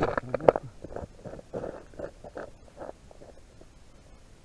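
Close handling knocks as the camera settles on the ice, then footsteps on snow-covered ice, roughly two or three steps a second, growing fainter as the walker moves away. They die out after about three seconds.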